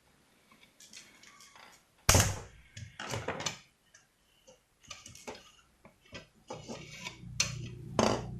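Clicks, knocks and scrapes of a hairdryer's plastic casing being pried apart at its latches, the loudest a sharp knock a little after two seconds in. A low steady hum starts about two-thirds of the way through.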